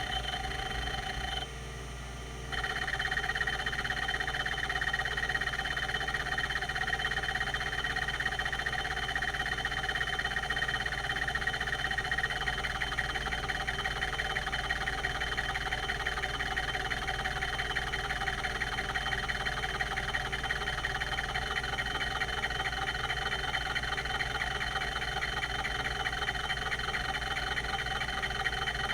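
Quantum Q540 5.25-inch hard drive running, its spindle giving a steady whine. After a short quieter moment about two seconds in, a dense, rapid chatter from the rotary voice-coil head actuator seeking joins the whine and continues.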